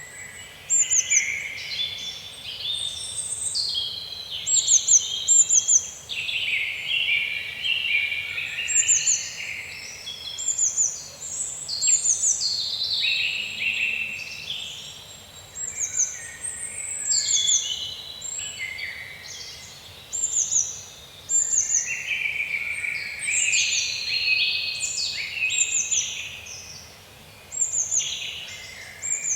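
Birds singing and chirping, several calls overlapping, with quick runs of three or four short, high, falling chirps repeating throughout.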